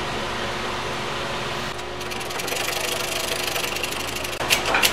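Shop press pump running with a fast, fine mechanical ticking from about two seconds in, as the press pushes a bearing out of a manual transmission's center support housing, then a few sharp metal clinks near the end.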